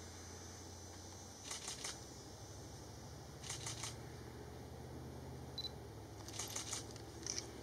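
Camera shutters firing in four short bursts of rapid clicks, several frames each, as photographers shoot in continuous mode.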